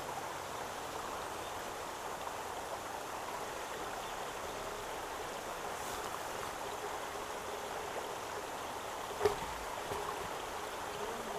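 Steady, even hiss of light rain falling on the pond's surface, with a single sharp knock about nine seconds in.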